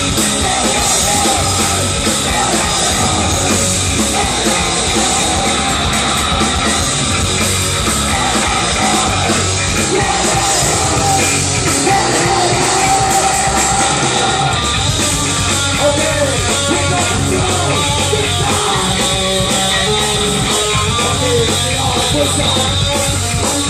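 Live punk rock band playing loud with electric guitars, drums and shouted vocals, recorded on a phone from inside the crowd.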